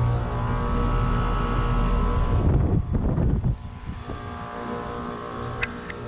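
Heat pump outdoor unit running in heat mode, its compressor giving a loud steady hum. About two and a half seconds in the sound changes abruptly, with a brief low rumble, then a quieter steady hum and a single sharp click near the end.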